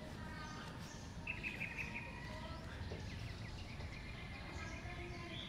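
Small birds chirping and trilling in the trees, over a steady low outdoor background noise.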